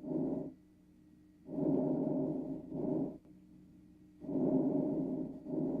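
Recorded chest breath sounds as heard on auscultation: about two full breaths, each a longer rushing phase of a little over a second followed, after a very short pause, by a shorter phase. A faint steady hum lies underneath.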